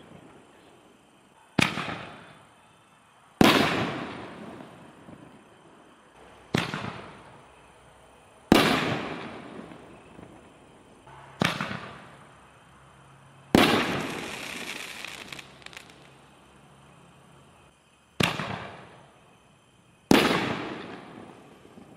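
60-gram canister firework shells going off: eight sharp bangs a couple of seconds apart, each trailing off in a long echo. After one bang a little past halfway, a hissing crackle lasts about two seconds.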